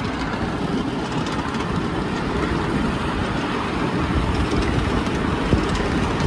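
Ride-on miniature live-steam train rolling along its track, a steady low rumble of wheels on rail from the riding cars behind a 4-6-2 Pacific locomotive.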